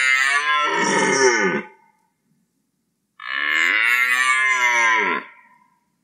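Red deer stag roaring in the rut: one long roar ending about two seconds in, then a second starting about three seconds in that drops in pitch as it dies away.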